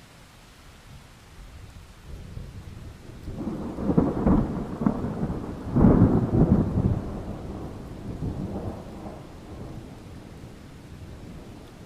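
A thunder clap rolling over steady rain: the rumble builds about two seconds in, cracks loudest twice around the middle, then dies away over the last few seconds while the rain goes on.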